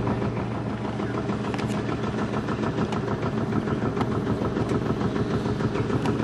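An engine idling steadily with an even, low running note.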